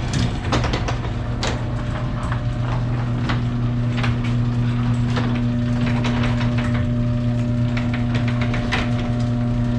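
LiftMaster Professional 1/3 HP garage door opener running as the door travels, its motor humming steadily with clicking and rattling throughout. This is a test run of the door on its newly refitted extension springs.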